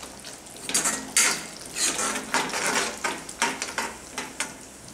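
Long metal spoon stirring a thick, sizzling masala gravy in a metal kadai, scraping the pan in a run of irregular strokes about every half second as garam masala is mixed in.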